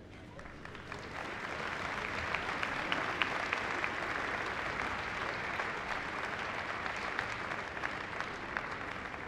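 Audience applauding, swelling over the first couple of seconds and then holding steady, with single sharp claps standing out from the mass.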